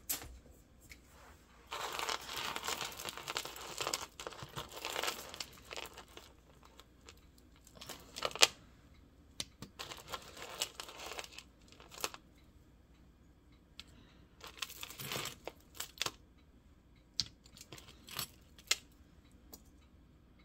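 Hands rummaging through a tangled pile of beaded necklaces and metal chains: steady rustling for a few seconds near the start, then scattered clicks and short rattles of beads and chain, the sharpest about eight seconds in.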